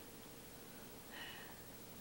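Near silence: faint steady hiss of the recording, with one brief faint high-pitched sound about a second in.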